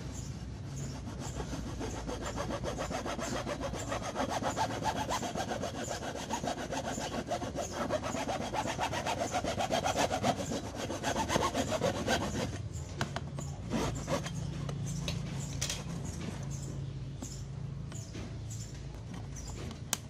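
Hacksaw cutting through PVC pipe with quick back-and-forth strokes. The sawing stops about two-thirds of the way through, followed by a few light clicks.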